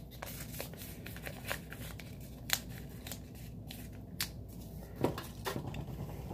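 A small square of paper, a yellow sticky note, being folded and creased by hand: light crinkling with a few sharp clicks and snaps.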